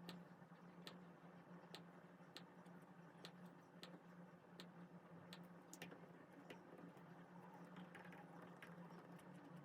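Near silence: faint irregular clicks, about one or two a second, over a low steady hum.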